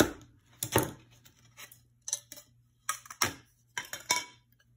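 Small pieces of scrap window glass clinking and sliding against each other and the work surface as they are handled: a string of sharp clicks and short scrapes, about eight in all.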